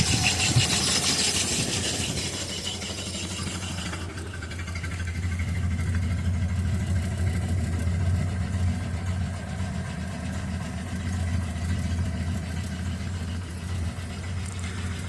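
Engine idling steadily after repair of its exhaust leak and cracked intake manifold. A loud hiss rides over it and cuts off about four seconds in.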